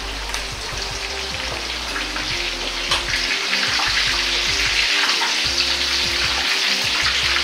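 Corn and edamame kakiage fritters deep-frying in hot oil in a wok: a dense, steady sizzle and crackle of bubbling oil, growing somewhat louder about three seconds in.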